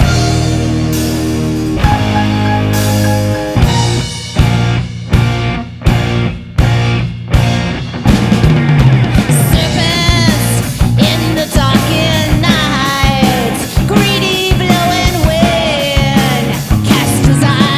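Rock band playing an instrumental section of a rock ballad. Sustained chords give way to a run of short stop-time hits, then from about 8 s a lead melody with bends and vibrato plays over the band.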